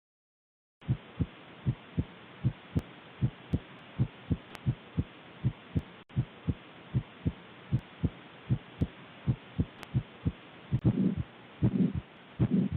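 Heart sounds recorded through a stethoscope: a regular lub-dub of first and second heart sounds, about 75 beats a minute, starting about a second in. Near the end the beats change to longer, louder and noisier sounds.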